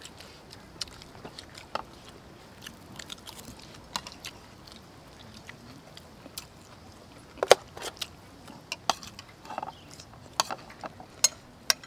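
People eating: chewing and mouth sounds with scattered sharp clicks of spoons on plates, the loudest about seven and a half seconds in.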